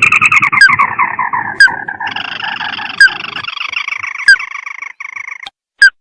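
Crake (burung tikusan) calling from a lure recording. A fast trill falls in pitch over about two seconds, then turns into a steady, rapid rattling trill that stops about five and a half seconds in, with short sharp notes cutting in about once a second.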